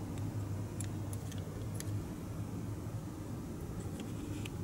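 Small plastic model-car parts clicking as they are handled and pressed together by hand: a few light clicks about a second in and again near the end, over a steady low hum.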